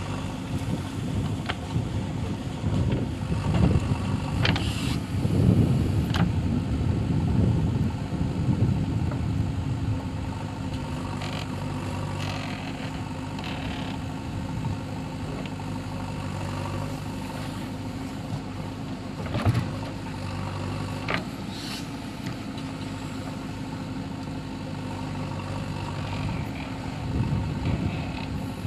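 Diesel engine of a JCB 3DX backhoe loader running steadily, pulling harder and louder for several seconds early on as it works, with a few sharp metallic knocks.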